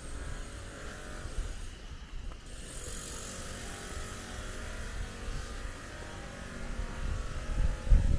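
Steady engine noise of a motor vehicle, with an uneven low rumble and a louder low thump near the end.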